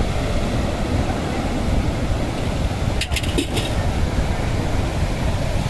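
Sea waves breaking on a rocky shore, with wind buffeting the microphone: a steady deep rumble, with a few short crackles a little past halfway.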